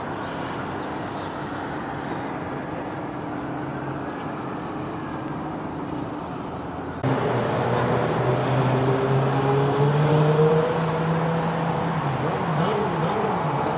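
Road traffic noise with vehicle engines running. It gets abruptly louder about halfway through, then a steady engine hum and a slowly rising engine tone.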